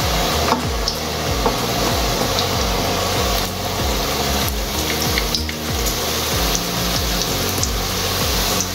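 Besan papdi dough frying in hot oil in a kadai: a steady sizzle with small crackles, while a palm rubs the dough across a slotted metal papdi jhara over the oil.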